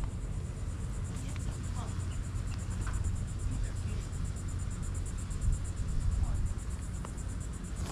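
Steady low wind rumble on the microphone under a fast, even insect trill, with a few faint short chirps.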